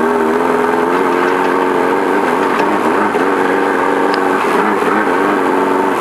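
Off-road race car's engine running under load, heard from inside the cockpit, its revs dipping and climbing again a few times as the throttle is worked.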